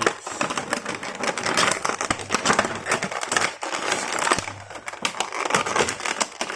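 Plastic blister packaging and cardboard box crinkling and crackling, with many small irregular clicks, as an action figure is pulled and worked out of its packaging.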